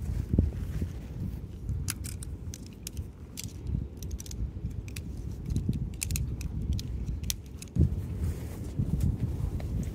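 Irregular light clinks and rattles of small hard items being handled, like camping gear or keys jangling, over a steady low rumble. A dull thump comes near the end.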